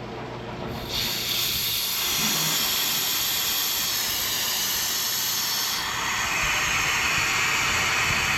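Compressed air hissing out of a pneumatic air jack's dump valve as the jack lets the vehicle down. The hiss starts about a second in, holds steady, and changes tone about six seconds in.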